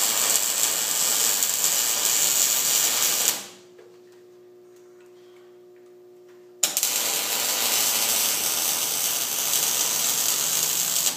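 Electric arc welding, building up a worn bushing bore with weld: a steady crackle of the arc for about three and a half seconds, a pause of about three seconds with only a low steady hum, then the arc strikes again and crackles on.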